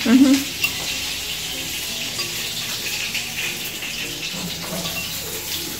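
Pieces of hen frying in hot oil in a pan, a steady sizzling hiss.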